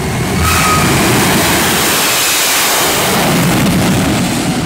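Jet truck's jet engine running with its afterburner lit during a drag-strip run: a loud, steady rumbling roar.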